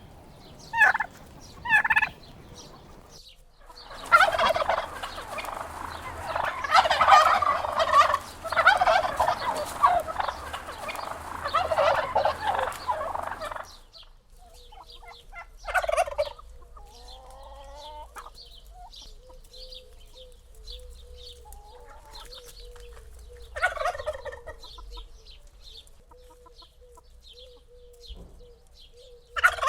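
Wild turkeys gobbling: two short gobbles near the start, then a long stretch of several birds gobbling over one another for about ten seconds, followed by single gobbles spaced several seconds apart. Faint high chirping and a faint steady tone run under the later, quieter part.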